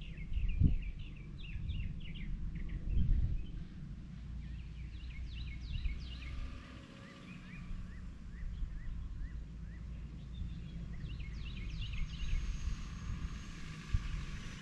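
Small birds chirping in runs of short, quick notes, over a steady low rumble, with two dull thumps in the first three seconds.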